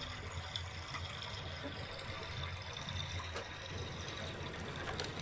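Water running and trickling, like liquid being poured to fill a vessel, with a few faint clicks.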